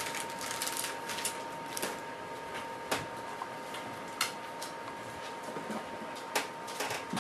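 Hands fitting a neck strap to a camera: scattered light clicks and rustles, over a faint steady high tone.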